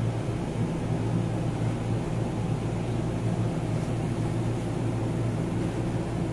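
A steady low mechanical hum at an even level, with no knocks or breaks.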